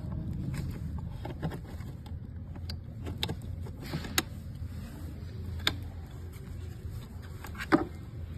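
About five sharp clicks and taps, spaced a second or more apart, the loudest near the end, over a steady low hum.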